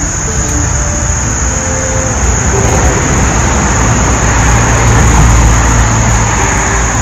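A road vehicle passing by, its noise swelling to a peak about five seconds in and then fading. Steady high insect buzzing runs throughout.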